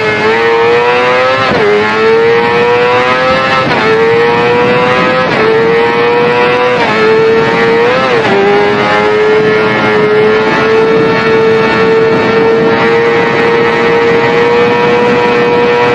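Motorcycle engine accelerating hard through the gears: its pitch climbs and drops back about five times as it shifts up, then holds a high, steady note that creeps slowly upward for the second half.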